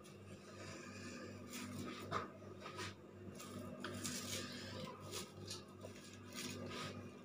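A knife cutting through a chocolate-topped peanut-and-biscuit slab lying on a plastic sheet: scattered scraping and crinkling strokes, the sharpest about two seconds in. A steady low hum runs underneath.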